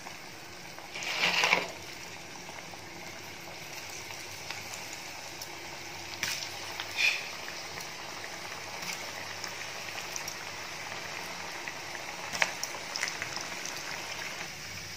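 Balls of banana and besan batter deep-frying in hot oil in a kadai: a steady sizzle with scattered crackles. The sizzle surges louder about a second in as a fresh ball goes into the oil, and a few sharp pops come later.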